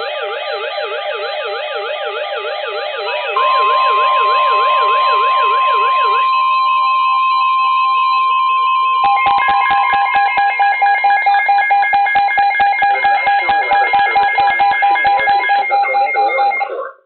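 Several NOAA weather radios sounding their tornado warning alarms together. A fast warbling siren tone is joined about three seconds in by a steady high alert tone; the warble stops about six seconds in, and about nine seconds in rapid pulsing beeps start. All the alarms cut off suddenly just before the spoken warning.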